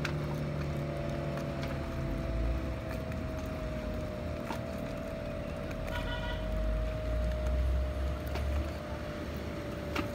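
Speedboat engine running at speed as the boat passes: a steady whine that slowly drops in pitch, over a low rumble and the hiss of water. A brief high-pitched note sounds about six seconds in.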